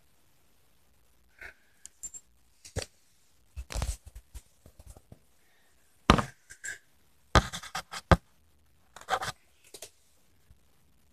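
Handling noise: irregular rustles, scrapes and knocks as the camera is moved about and toys are handled close to the microphone, loudest in short bursts about six and seven and a half seconds in.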